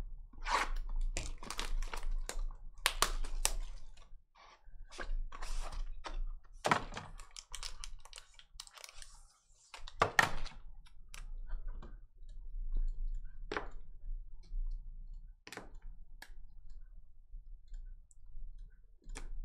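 Trading-card hobby box being opened and a foil-wrapped pack handled: an irregular run of cardboard and foil crinkles, taps and thunks.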